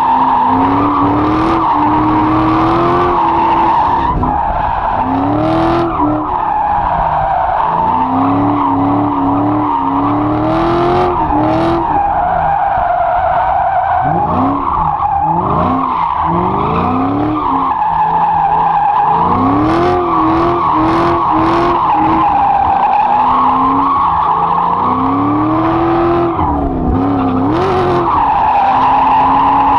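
Dodge Challenger SRT8's HEMI V8 revving up and dropping back again and again while drifting, with the tyres squealing steadily under it.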